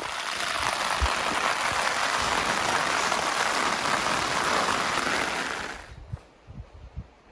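Heavy rain falling, a dense steady hiss that cuts off suddenly about six seconds in, leaving a few faint low thumps.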